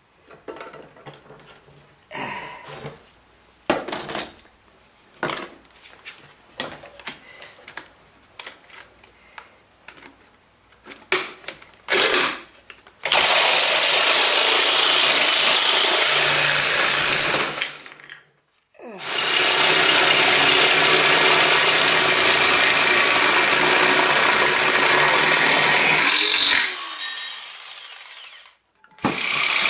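Scattered clicks and knocks of handling, then a jigsaw with a metal blade cutting thin sheet metal in two long runs, the motor winding down with a falling pitch after each; a third run starts near the end.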